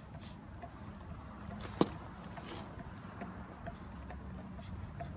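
A single sharp knock about two seconds in, over faint steady background noise with small scattered ticks.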